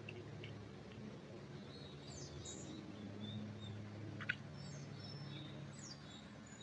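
Small birds calling with short high chirps and quick downward sweeps, several overlapping from about a second and a half in, over a low steady hum. A single sharp click about four seconds in.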